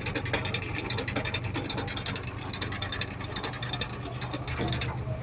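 Fast, irregular mechanical clicking and crackling over the steady low hum of an idling engine.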